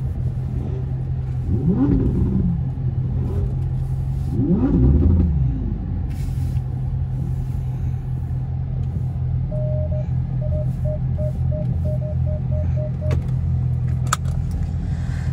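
Dodge Charger SRT 392's 6.4-litre Hemi V8 running at low speed, revved twice in short rises and falls of pitch about two and five seconds in. Later comes a run of about ten short, evenly spaced electronic beeps from the car, about three a second, and near the end a single sharp click.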